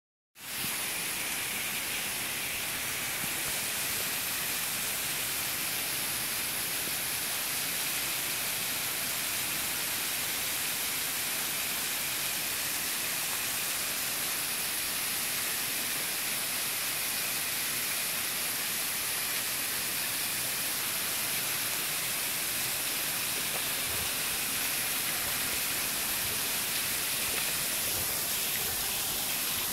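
Thin waterfall dropping down a rock face onto stones: a steady hiss of falling and splashing water.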